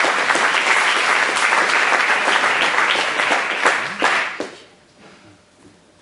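Audience applauding at the end of a sung improvised verse. The clapping dies away about four and a half seconds in.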